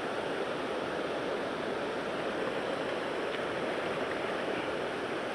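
Steady rush of moving water, an even hiss with no splashes standing out.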